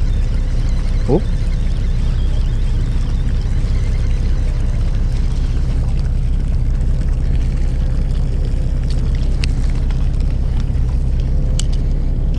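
Fishing boat's engine running with a steady low drone. A short rising squeak comes about a second in, and a few faint clicks near the end.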